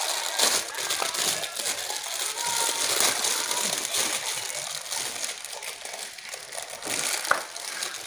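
Clear plastic packaging crinkling and rustling as it is handled, a steady run of small irregular crackles, with one sharp click just over seven seconds in.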